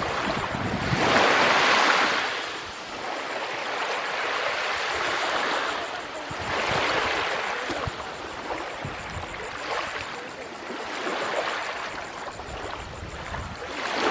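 Bay waves washing onto the shore, swelling and fading in slow surges every few seconds, the loudest about a second in.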